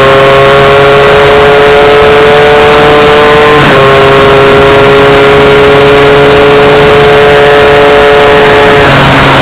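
MZ 250 two-stroke single-cylinder race bike engine at high revs, its pitch climbing steadily under acceleration, with a quick upshift about three and a half seconds in and the revs dropping as the throttle is shut near the end. A constant wash of wind noise on the bike-mounted microphone runs under it.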